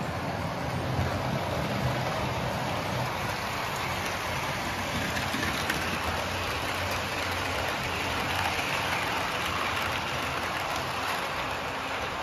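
Model railway train running on its track: a steady whirring clatter of the motor and wheels on the rails with a low hum underneath.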